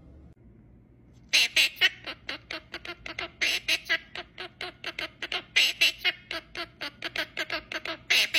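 Pet parrot squawking: a long run of short, harsh calls, about four a second, starting about a second in.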